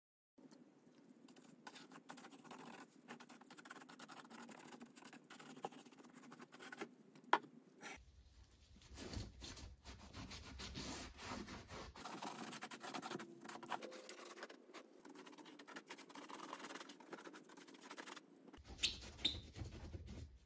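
Paintbrush bristles scratching over the painted chest while dry-brushing paint on, then a gloved hand rubbing a rag over the surface; faint, in a few short takes that change abruptly, with one sharp tick about seven seconds in.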